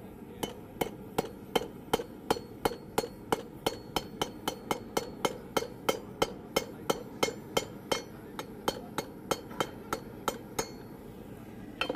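Blacksmith's hammer striking hot steel at the anvil, steadily about three blows a second, each with a short metallic ring. He is cutting off a small lip of the workpiece over a hardy hot cut tool. The blows stop shortly before the end, and one last strike follows.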